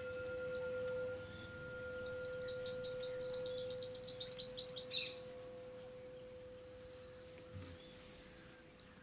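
Small birds chirping in rapid high trills, loudest a few seconds in, with a thin whistled note later. Beneath them a struck chime rings on as one steady tone and slowly fades.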